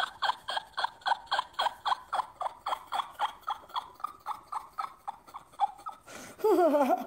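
A long fit of laughter: breathy 'ha' pulses about five a second, trailing off, with a short spoken phrase near the end.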